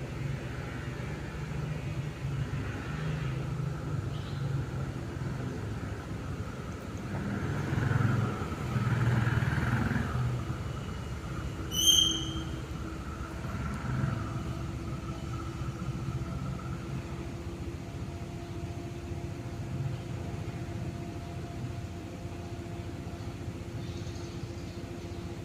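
Cosmos 56-CBA 140 cm industrial ceiling fan turning, a steady low hum with a rush of moving air. A louder swell comes about eight to ten seconds in, and a short high ping sounds about halfway through.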